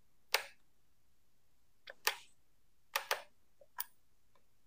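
About half a dozen sharp, short clicks or taps at irregular intervals, some in quick pairs, over an otherwise quiet background.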